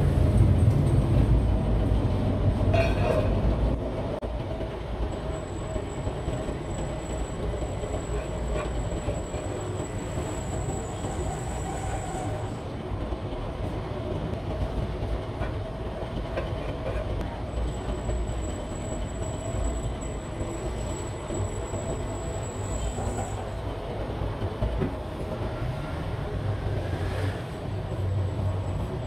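Heavy workshop machinery running with a steady low rumble, louder for the first few seconds. A faint high whine comes and goes, and there is a brief metallic knock about three seconds in and another near the end.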